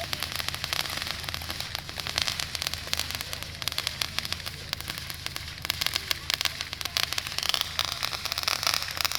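Fireworks crackling: a dense, unbroken run of rapid small pops and snaps, growing busier about halfway through.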